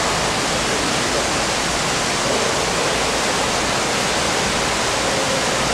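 Steady, even rush of running water at the pool, with no distinct splashes standing out.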